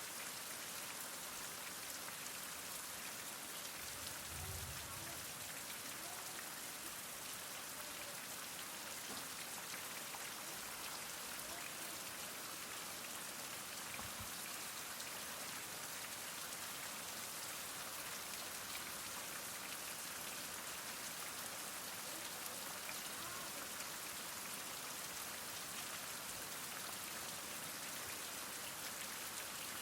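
Heavy rain falling steadily, a dense, even hiss of drops on surfaces with no thunder.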